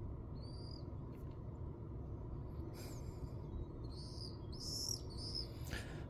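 Birds chirping: a few short high calls near the start and a cluster of them a little after the middle, over a steady low rumble, with a few sharp clicks in between.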